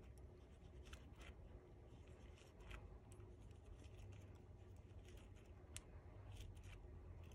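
Near silence, with faint scattered clicks and rustles of paper petals being curled with a ball-tip embossing tool on a flower-shaping mat.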